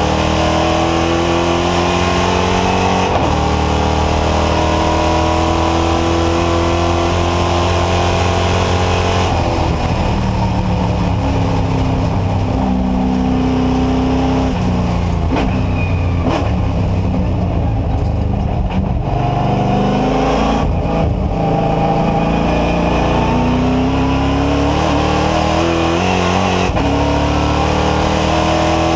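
NASCAR Whelen Euro Series stock car's V8 engine at racing speed, heard from inside the cockpit. It climbs in pitch under acceleration with a sharp step down at each upshift, runs lower and uneven through the middle as the driver lifts and shifts down for corners, then pulls up through the revs again near the end.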